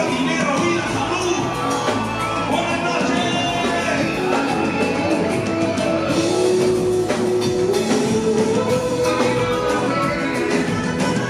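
Live concert music with a sung vocal line over the band.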